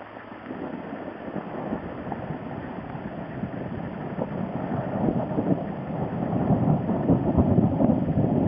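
Gusty wind buffeting the microphone, growing steadily louder over several seconds as a gust builds and peaking near the end.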